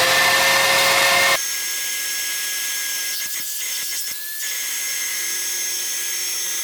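Bissell 16N5 upright vacuum cleaner motor running with a steady whine. About a second and a half in, it abruptly turns quieter and lower in pitch and stays that way. The agitator brush is not spinning under power, a fault of this machine.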